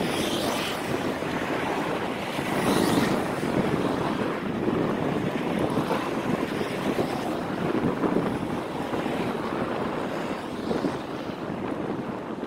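Wind rushing over the microphone of a camera riding on a moving bicycle: a steady rough noise that swells a few times, loudest about three seconds in.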